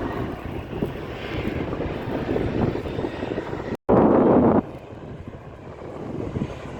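Jet airliner engines rumbling as the aircraft climbs away after takeoff. A little under four seconds in the sound drops out briefly, then comes back as a short loud burst of noise before settling to a quieter rumble.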